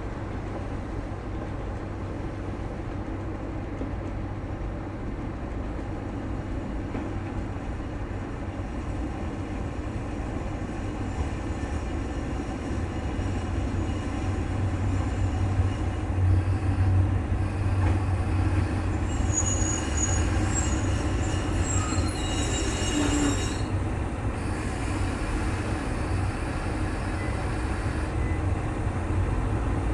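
Kanto Railway Joso Line diesel railcar running, its low engine rumble growing louder through the middle. A high metallic squeal starts about two-thirds of the way through, lasts a few seconds and cuts off suddenly.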